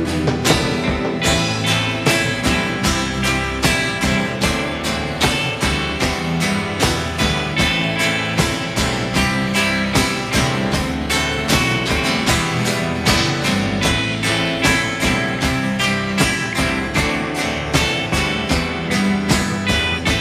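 Live rock band playing an instrumental break between choruses, with no vocals: guitars over a steady drum beat.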